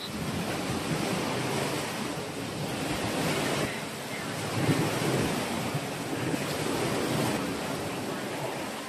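Large pan of fish soup at a rolling boil, bubbling steadily.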